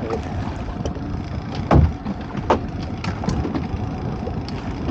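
Wind on the microphone and choppy water around a small open fishing boat, with a heavy thump just under two seconds in and a lighter knock about half a second later.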